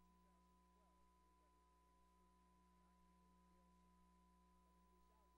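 Near silence: only a faint steady electrical hum with a thin high steady tone.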